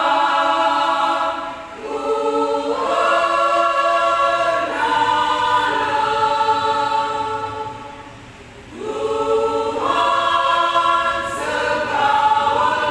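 Women's church choir singing a Karo-language hymn in sustained chords, with short breaks between phrases about two and eight seconds in.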